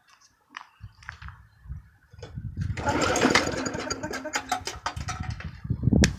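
Small lawnmower engine starting up about two seconds in and running, loudest just after it catches, following handling noises.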